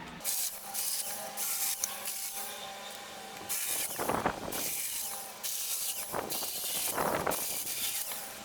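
Hand saw cutting through a crab apple branch in repeated back-and-forth strokes, roughly two a second, with a short pause partway through.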